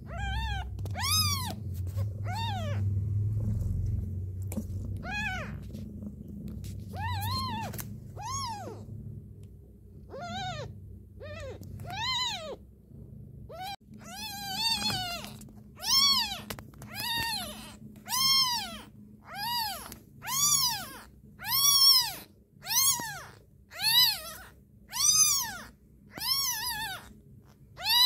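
Very young kitten mewing (crying) over and over, short high calls that rise and fall in pitch. The calls are scattered at first, then come about once a second and louder from about halfway on. A low rumble sits under the first several seconds.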